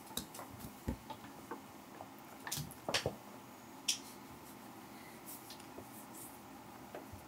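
Brown paper bag crinkling softly as a cat shifts inside it: a few scattered short rustles and crackles, the loudest about three seconds in.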